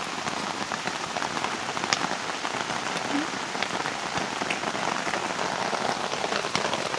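Steady rain falling, with scattered sharp drop hits standing out over an even hiss.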